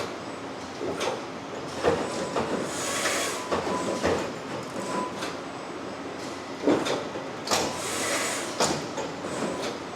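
Prima-Power Shear Genius SG1530 servo-electric CNC turret punch press running, with irregular mechanical clunks and two bursts of air hiss over a steady machine hum.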